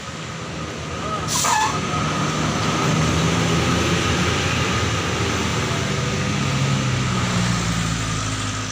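Large tour bus's diesel engine running hard as the bus climbs the hill and passes close. The engine grows louder about a second in, then holds steady. A brief sharp sound comes about a second and a half in.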